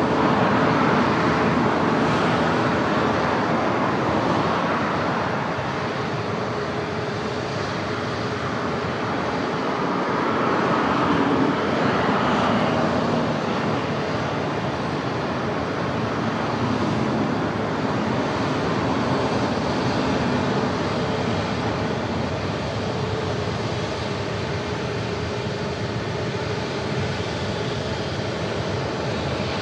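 Passenger jet engine noise: a steady, unbroken roar with a faint steady hum, swelling and easing slightly a few times.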